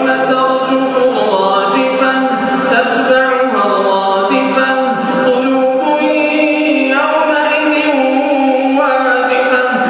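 A man's voice reciting the Quran in a melodic, chanted style, holding long notes and drawing out each phrase.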